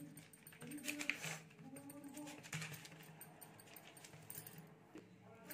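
Soft pats and presses of an oiled hand on dough spread over a plastic sheet, with a faint whine-like tone coming back about once a second.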